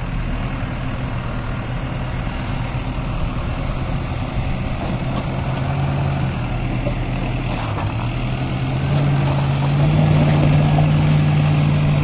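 Backhoe loader's diesel engine running steadily under load as it pushes snow with its front bucket. The engine note dips briefly near eight seconds, then rises and gets louder about nine seconds in.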